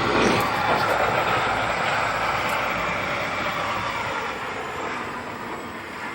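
Heavy snowplow truck driving past, its engine and road noise fading steadily as it moves away.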